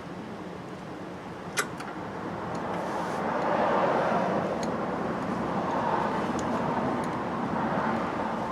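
Vehicle traffic noise that swells up about three seconds in and stays up with slow rises and falls. A single sharp click comes shortly before the swell.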